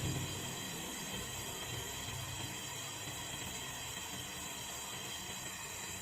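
A steady, unchanging hiss with faint high tones running through it.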